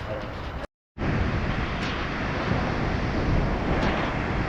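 Steady rushing of a waterfall's falling water. It drops out for a split second just under a second in, then comes back slightly louder.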